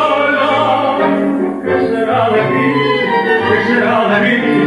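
Tango music playing: a melody of long held notes over an orchestral accompaniment.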